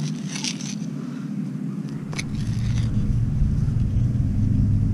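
A digging knife cuts and scrapes into grassy soil as a coin plug is dug out, in short scraping bursts near the start and again about two seconds in. Under it, a low rumble grows steadily louder from about two seconds on.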